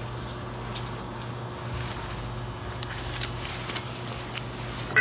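Steady low hum with a few faint, short clicks and rubbing as gloved hands push a greased bushing onto a steel anti-sway bar.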